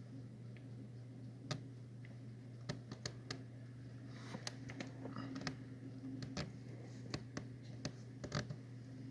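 A dozen or so irregular sharp clicks or pops, some in quick pairs, over a steady low hum.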